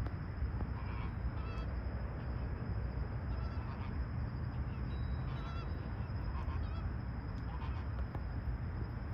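A flock of American flamingos flying overhead, giving scattered short goose-like honks about once a second, over a steady low rumble.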